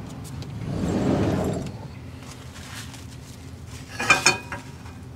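Keys jangling in a short metallic jingle about four seconds in, after a low rush of noise that swells and fades over the first two seconds.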